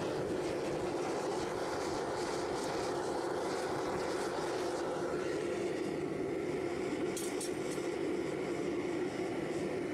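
Backyard metal-melting furnace running, its forced fire making a steady rushing noise. A few light metallic clinks about seven seconds in, as the lid goes on.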